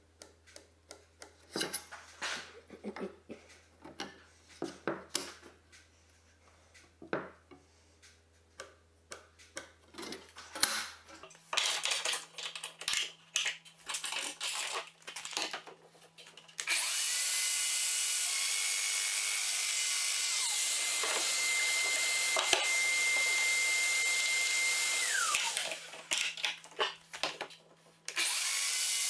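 Light clicks and knocks of wood and clamps being handled, then a Festool Domino joiner running with its dust extractor for about eight seconds, a steady high whine over loud noise, before the motor spins down. A few more knocks, then the joiner and extractor start up again near the end.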